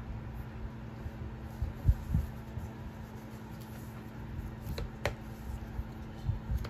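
Handling of an iPad in a magnetic folio case: a few soft thumps about two seconds in, then the cover folded over and shutting with one sharp click about five seconds in, over a faint steady hum.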